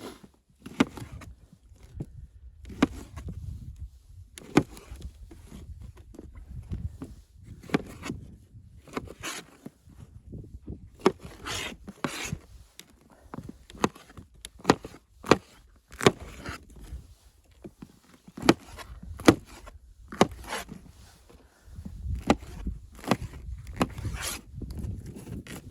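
Irregular sharp cracks and knocks, about one or two a second, over a low rumble.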